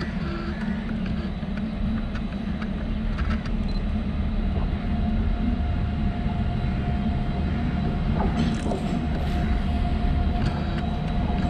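Approaching electric train: a steady low rumble that grows slowly louder as it nears. A thin steady tone joins about five seconds in.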